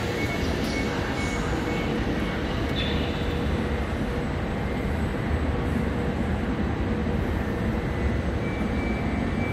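Italo EVO high-speed train standing at the platform with its equipment running: a steady hum and hiss under the station's train shed. A short beeping is heard in the first second or so, and a thin high tone sets in near the end.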